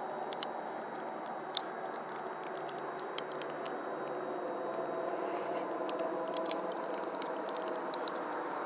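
Helicopter overhead, a steady drone that grows slightly louder in the second half, with scattered faint clicks on top.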